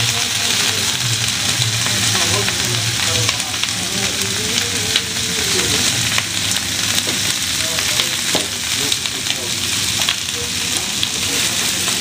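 Cut vegetables sizzling steadily as they fry in hot mustard oil in a frying pan, with a few sharp clicks as the vegetables tip into the pan and are stirred with a wooden spatula.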